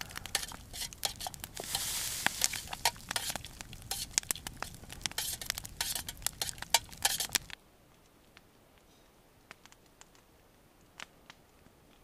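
Cooking sounds at a simmering soup pot: a busy run of irregular sharp clicks and crackles with a soft rustle, as seasoning and bay leaf go in. It stops abruptly about seven and a half seconds in, leaving only an occasional faint tick.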